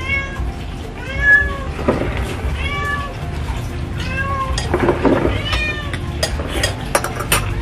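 Domestic cat meowing repeatedly, one short rising-and-falling meow about every second and a half.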